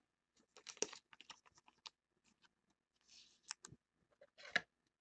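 Faint, scattered clicks and light rustling of cardboard trading cards being handled and set down on a table, with a brief sliding rustle about three seconds in.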